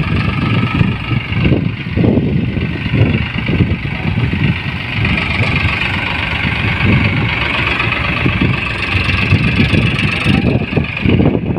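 Farmtrac tractor's diesel engine running steadily under load as it pulls a fully loaded trolley.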